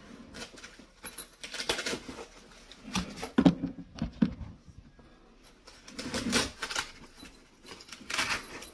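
Nylon backpack insert being handled and fitted onto a rolling backpack's metal frame: scattered fabric rustles, scrapes and short knocks, the sharpest knock about three and a half seconds in.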